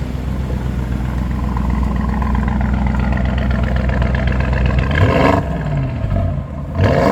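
Audi SQ7's 4.0-litre twin-turbo V8 idling through its quad exhaust, then revved twice in quick blips, about five seconds in and again near the end, the pitch dropping back toward idle after each.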